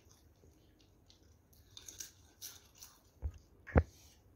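Crisp potato chips being bitten and chewed, with faint scattered crunches. Near the end come two dull knocks about half a second apart, the second the loudest.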